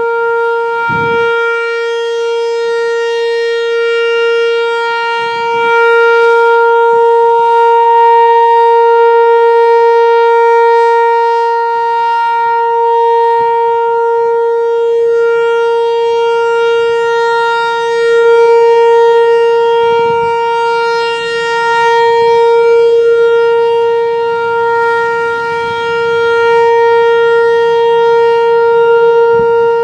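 Whelen Vortex R4 outdoor warning siren sounding a steady, unbroken tone for its weekly test, its loudness slowly swelling and fading.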